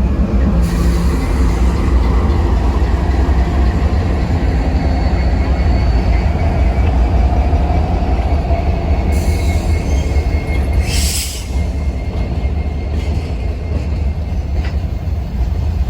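Freight train moving during switching: a steady low diesel locomotive rumble with cars rolling, a faint high wheel squeal, and a short hiss about 11 seconds in.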